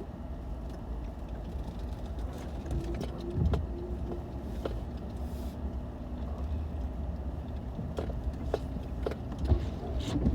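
Vehicle driving slowly, heard from inside: a steady low engine and road rumble with scattered knocks and rattles, and a louder thump about three and a half seconds in.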